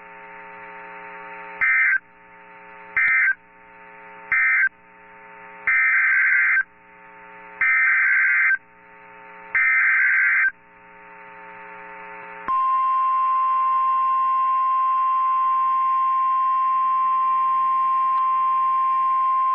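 Emergency Alert System data bursts: three short buzzy bursts of the end-of-message code closing the marine warning, then three longer bursts of the SAME header that opens the tornado warning, with a faint hum in the gaps. About two-thirds of the way in, the steady 1050 Hz NOAA Weather Radio warning alarm tone starts and holds.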